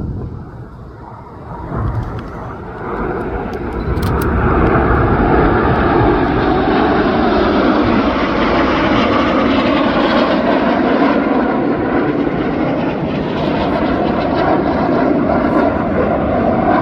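Formation of BAE Hawk T1 jets, with Adour turbofan engines, flying past: a jet roar that builds over the first few seconds and then holds loud and steady.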